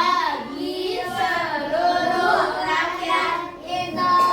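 Young children's voices singing or chanting together in a sing-song way.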